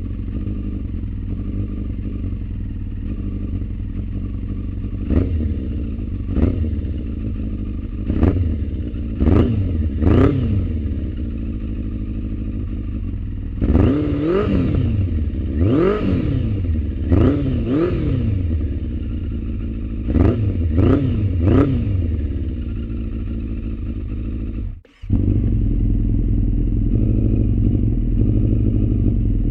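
Yamaha FZS600 Fazer's inline-four engine idling through a Black Widow full stainless exhaust system, blipped about a dozen times with short revs that rise and fall back to idle. Near the end the sound cuts out briefly and returns as a louder steady idle.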